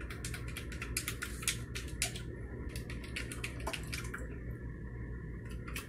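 A cat licking and lapping at the mist nozzle of a home humidifier: a fast, irregular run of small wet clicks that thins out about four seconds in as the cat pulls back.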